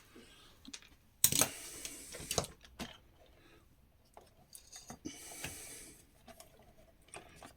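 Bench handling noise while a site radio's circuit board is being taken out: a sharp knock about a second in, then scraping and rustling, several light clicks, and another stretch of scraping about five seconds in.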